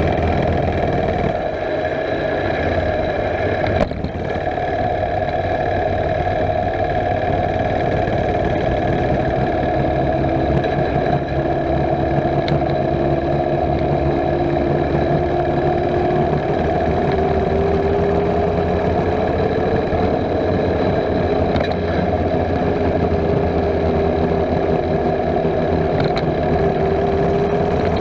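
Small single-cylinder gasoline engine of a Jackrabbit mini bike running steadily while riding, its pitch creeping up slowly through the middle as the bike speeds up, then holding.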